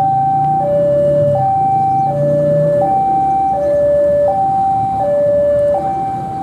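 Electronic two-tone railway level-crossing warning alarm, alternating a high and a low note about every three quarters of a second in a steady repeating cycle.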